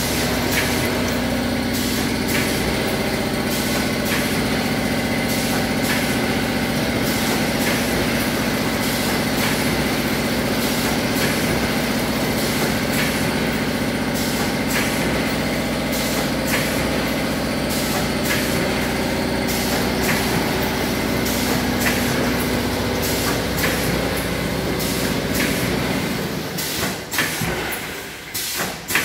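Automatic snack pouch packing line running: a steady mechanical hum with frequent sharp clicks and clatter of the machinery and falling snacks. Near the end the hum falls away, leaving quieter, uneven clicking.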